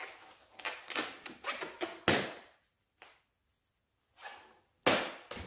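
Disposable rubber gloves being pulled onto the hands: a run of short snaps and rustles, the sharpest about two seconds in and again near the end, with a pause of about two seconds between.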